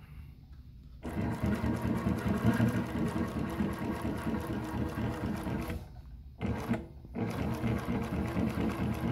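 JUKI LU-1508NS heavy-duty walking-foot industrial sewing machine stitching webbing binding onto thick vinyl leather. It starts about a second in and runs in a fast, even stitching rhythm, stopping and restarting twice past the middle.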